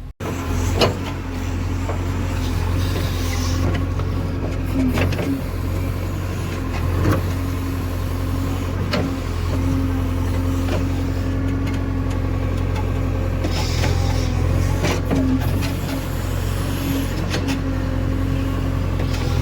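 Diesel engine of heavy earth-moving machinery running steadily, with scattered sharp metallic knocks and clanks.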